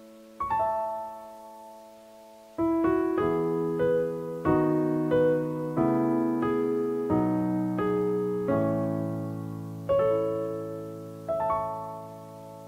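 Slow solo piano music: single notes and chords struck and left to ring, with a pause near the start before a steady run of notes.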